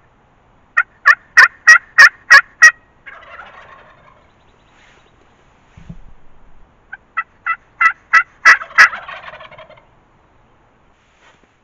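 Two runs of loud, sharp turkey yelps, about seven notes each, each answered by a quieter rattling gobble from a wild turkey gobbler; the second gobble cuts in over the end of the yelping.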